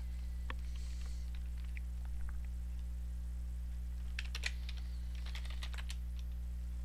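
Computer keyboard keys tapped: a few scattered clicks, then a quick run of keystrokes about four to six seconds in as a login name is typed, over a steady low electrical hum.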